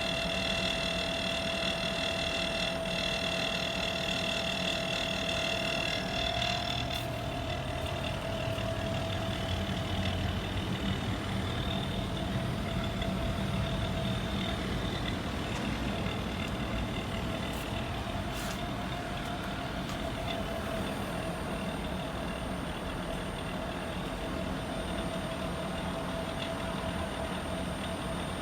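Air-conditioner outdoor unit running with an abnormal noise: a steady low hum and a constant mid-pitched tone, with a high whine over it that stops suddenly about seven seconds in.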